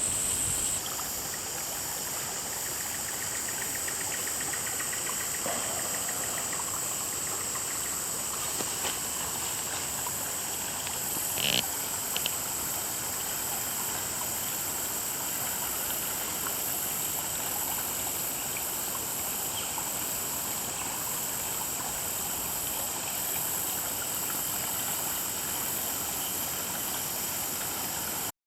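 Steady rush of running floodwater from overland flow, with a steady high-pitched drone over it and a brief click about halfway through. The sound cuts off suddenly near the end.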